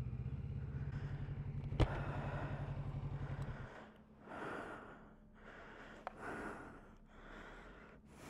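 Kawasaki Z650RS parallel-twin engine idling with an even pulse, with one sharp click a little under two seconds in. The engine stops abruptly at about three and a half seconds, and a rider's heavy breaths follow.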